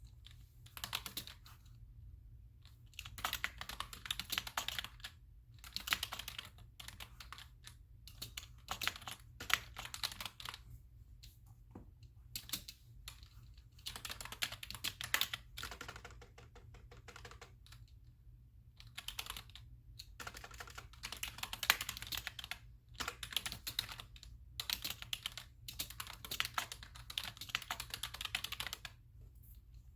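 Typing on a computer keyboard in bursts of rapid keystrokes, each run lasting a second or few, with short pauses between them.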